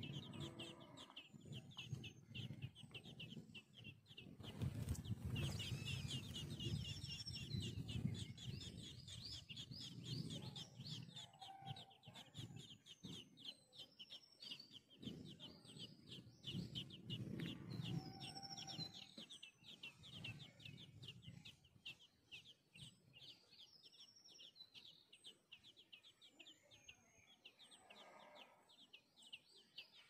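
Songbird nestlings begging in the nest: a fast, steady train of high chirps, with a few separate higher chirps above it and low rustling underneath. It grows fainter in the last third.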